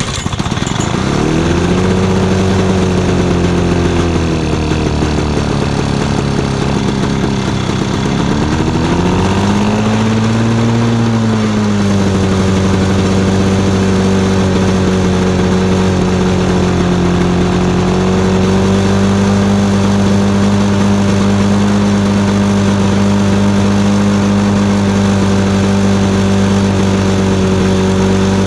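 Lawn-Boy walk-behind mower's two-stroke engine catching right at the start and running. Its speed hunts up and down for about the first ten seconds, then settles into a steady run.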